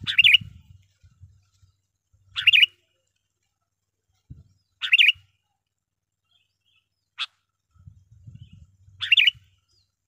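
Sooty-headed bulbul (kutilang) giving four short, warbling calls a few seconds apart, with a single sharp click between the third and fourth call and a faint low rumble underneath.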